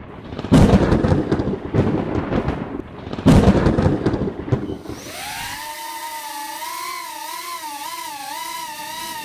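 Loud, irregular rumbling thumps for about five seconds, then the high whine of a small FPV quadcopter's motors starting up and running, its pitch wavering up and down as the throttle changes.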